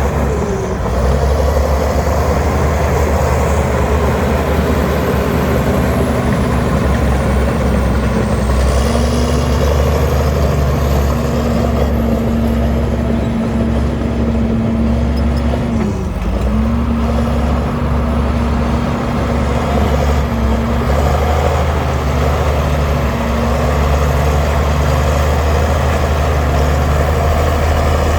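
Heavy diesel engine of earthmoving machinery running steadily under load. Its pitch sags briefly twice, about a second in and again around the middle, then recovers.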